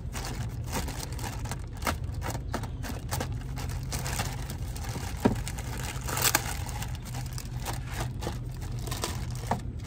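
Plastic packaging crinkling and rustling as it is cut and pulled open by hand with a small blade, with scattered sharp clicks and scrapes. A steady low hum runs underneath.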